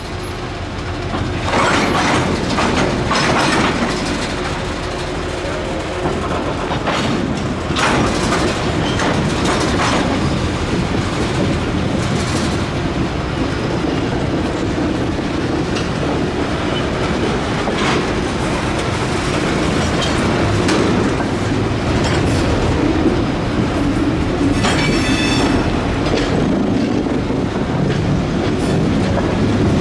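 Freight cars (tank cars and a covered hopper) rolling past at close range: a steady rumble of steel wheels on rail, with irregular clacks as the wheels cross rail joints. A brief high wheel squeal near the end.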